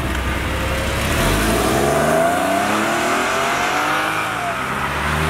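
Porsche 911 (997) flat-six pulling away past the listener, accelerating with its revs rising steadily for about three seconds.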